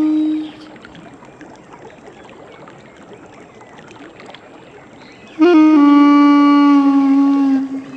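Duduk playing long, slow held notes. A note dies away about half a second in; after a gap of about five seconds with only faint background hiss, a new lower note starts with a quick ornamental flick and is held for about two seconds before fading.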